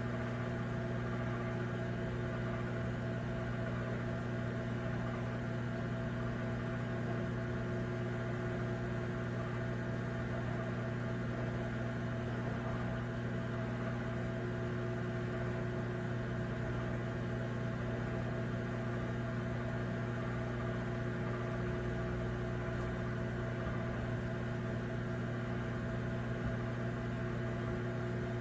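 Microwave oven running: a steady electric hum with fan noise, unchanging throughout.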